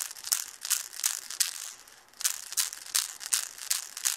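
Manhattan Toy Winkel baby rattle being shaken, its rattle rattling in quick rhythmic bursts of about three shakes a second, with a brief pause about two seconds in.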